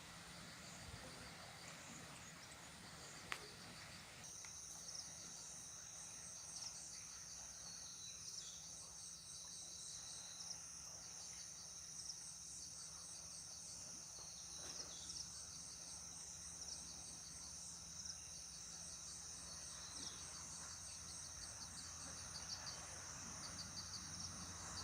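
A chorus of jungle insects: a steady high-pitched buzz that starts about four seconds in, with rapid pulsing chirps repeating over it. A single sharp click sounds a few seconds in.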